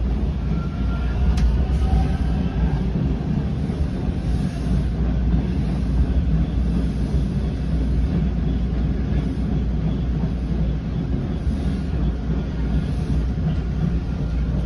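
Toronto subway train running through a station without stopping, heard from inside the car: a steady, loud rumble of the wheels and running gear on the track. There is one sharp click about a second and a half in.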